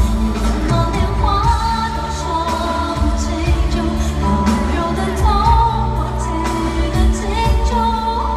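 Female pop singer singing live into a handheld microphone over a band backing track with heavy bass, heard through the arena PA.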